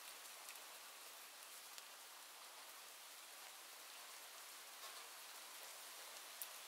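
Near silence: a faint, steady hiss with a few soft ticks.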